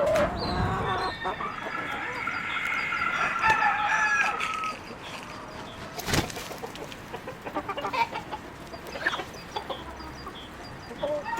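A rooster crowing in a long drawn-out call over the first four seconds or so, then chickens clucking in short scattered calls, with a single sharp knock about six seconds in.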